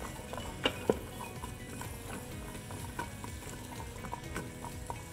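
Chopped onion, celery and carrots sizzling softly in butter and oil in an Instant Pot's stainless steel inner pot on sauté, stirred with a spoon that scrapes and clinks against the pot. Two sharper clinks come just under a second in.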